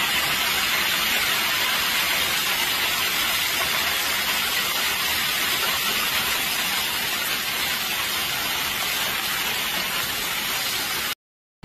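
Heavy hailstorm: hailstones and rain pouring down on grass and tree foliage in a dense, steady downpour that cuts off suddenly near the end.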